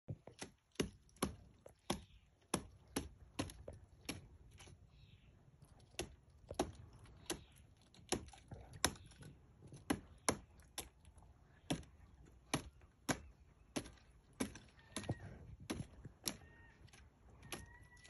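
Pileated woodpecker chopping into a rotten tree stump with single sharp blows, about one or two a second at an uneven pace: excavating the wood for food rather than drumming.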